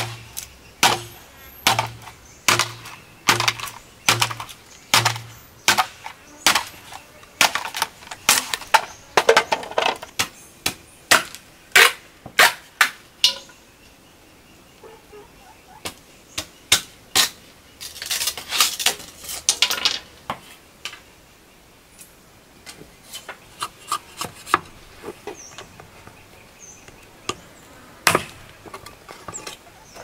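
Billhook machete chopping and splitting bamboo against a wooden block: a run of sharp chops, about two a second, through the first half. A quick flurry of shaving strokes comes after a pause, then a few lighter taps.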